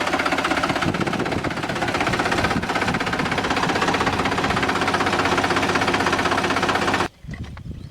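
Tractor diesel engine running steadily with a rapid knocking beat, with its stock exhaust and no turbo whistle fitted. It cuts off abruptly about seven seconds in.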